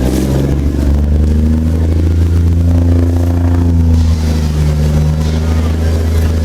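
Boat engine running steadily, a deep unbroken drone heard aboard the vessel.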